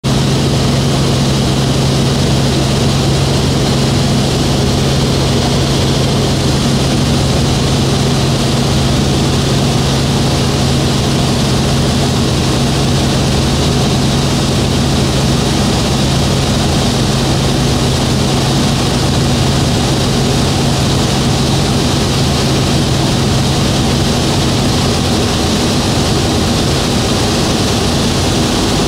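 Small helicopter in flight, heard from inside the cabin: a steady, loud drone of engine and rotors with a low hum. The low hum weakens about 25 seconds in.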